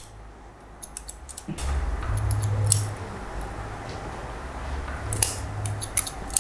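Hairdressing scissors snipping through a wet fringe, a series of short crisp snips in small clusters. A low hum comes in underneath about one and a half seconds in.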